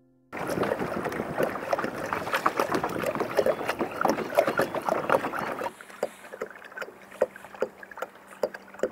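Choppy water slapping and splashing against a kayak hull while under way. About halfway in the sound drops to calmer water, with occasional small splashes and a faint steady hum from the kayak's electric trolling motor.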